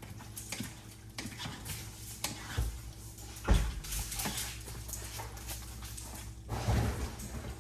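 Spoon scraping and knocking in a large pan while taco pasta is stirred to keep it from sticking, with a louder knock about three and a half seconds in.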